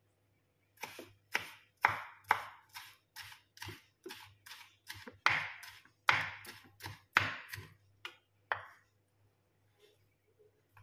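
Knife dicing a tomato on a wooden cutting board: a quick run of about twenty sharp chops on the board, two to three a second, which then stops.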